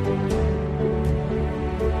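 Background music: sustained held tones with a light percussive hit about every three-quarters of a second.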